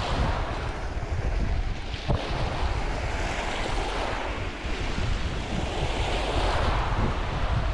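Sea waves washing in, the hiss of the water swelling up twice, with wind buffeting the microphone in a constant low rumble.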